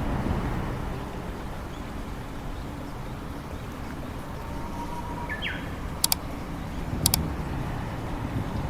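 Steady low rumble of distant road traffic outdoors, with a short high bird call about five seconds in and two brief sharp high chirps about a second apart near the end.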